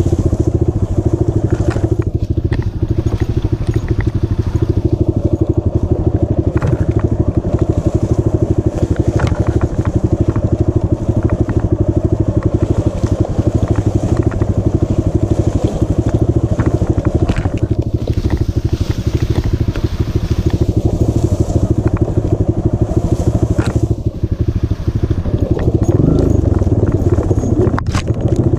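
Dirt bike engine running steadily as the bike rides along a rough grassy trail, with a few short knocks and rattles from the bumps.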